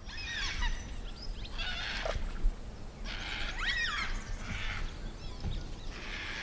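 Wild birds calling in several short bursts of whistled notes that sweep up and down in pitch, over a low steady rumble.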